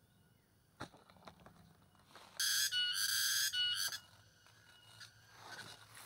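A few light clicks, then a loud, buzzy insect call for about a second and a half, starting about two seconds in, with faint steady insect tones behind it.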